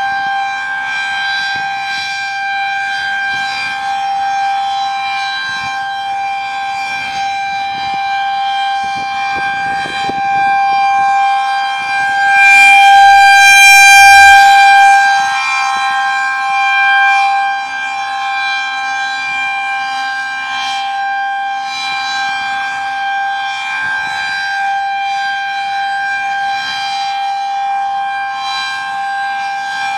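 Federal Signal 2001-SRNB civil defense siren sounding a steady single-tone alert signal during a test. It holds one pitch throughout and swells loudest about halfway through as its rotating head sweeps toward the listener, then falls back.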